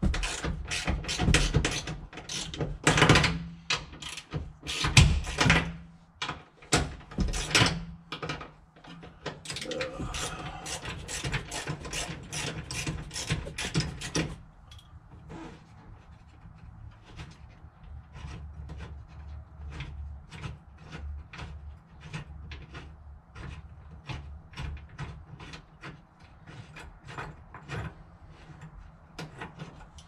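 Socket ratchet clicking in quick runs of strokes as a bolt is backed out of the seat-belt bracket on the B-pillar; the clicking is louder for the first half and turns softer and more even about halfway through.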